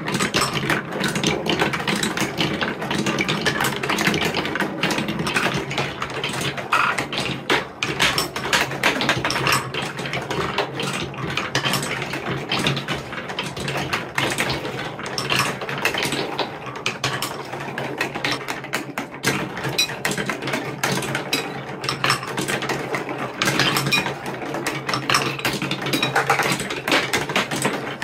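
Several marbles rolling down a TrixTrack marble run of wooden and plastic wave slopes: a continuous rolling rumble with dense clicks and knocks as the balls run over the track joints and through the branching pieces.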